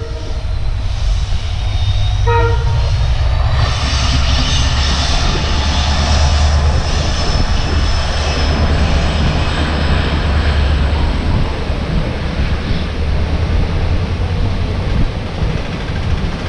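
WDP4D diesel-electric locomotive (EMD two-stroke V16 engine) hauling a passenger train past: a short horn blast about two seconds in, then the steady low rumble of the locomotive and its coaches rolling by.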